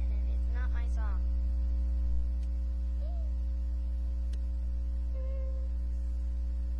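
Steady low electrical hum, like mains hum picked up by a webcam's recording, running under a girl's voice that makes a few short sounds about a second in.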